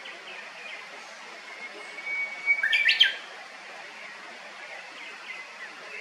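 Japanese bush warbler singing one song: a long, steady whistle that breaks into a short, loud flourish of quick notes about three seconds in. Faint short chirps carry on around it.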